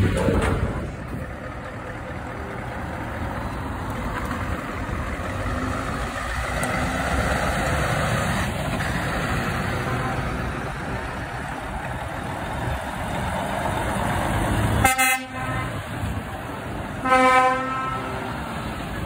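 Heavy trucks' diesel engines running as they drive past, with two short truck horn blasts near the end, about two seconds apart.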